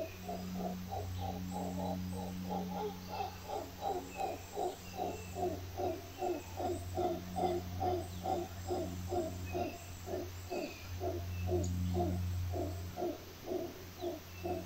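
Mantled howler monkeys calling in a long, rhythmic run of low, guttural grunts, about three to four a second, over a steady low hum, with faint insect chirps behind.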